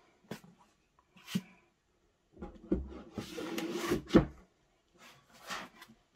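Hardback books being handled and slid into a slipcase: two light taps, then about two seconds of scraping as a book slides in, ending in a thump as it seats, and another brief swish near the end.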